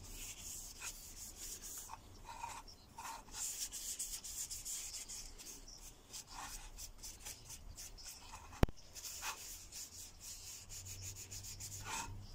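Paper towel rubbing and wiping over resin-cast burl wood knife handle scales, in short irregular strokes. A single sharp click stands out about eight and a half seconds in.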